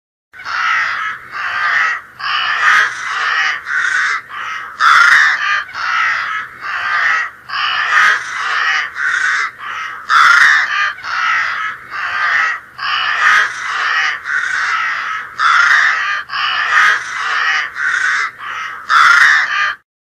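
Crows cawing over and over, about two caws a second, starting just after the beginning and stopping just before the end.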